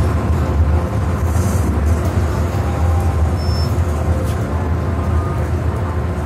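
Cabin running noise of an MTR M-Train electric multiple unit under way: a steady, loud low rumble, with a few faint brief high tones coming and going.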